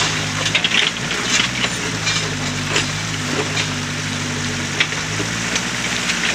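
Backhoe's diesel engine running steadily while its bucket digs into creek sand, with repeated sharp crunching and clattering.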